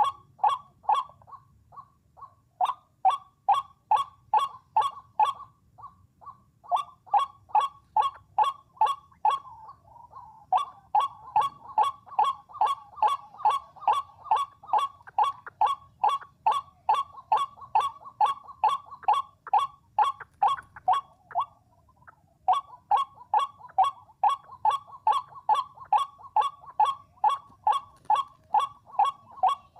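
White-breasted waterhen calls played back through a radio speaker as a lure: a loud series of harsh notes at about three to four a second, in long runs broken by a few short pauses.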